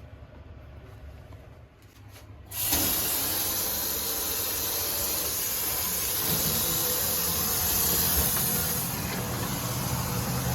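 Water from a kitchen faucet switched on about two and a half seconds in, then running as a steady hissing spray.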